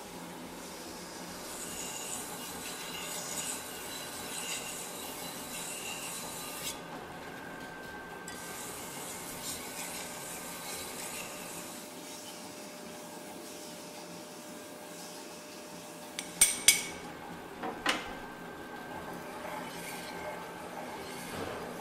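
Steel knife blade being ground by hand on a large water-cooled rotating grinding wheel: a steady wet rasp of steel on stone. A few sharp clicks stand out about two-thirds of the way in.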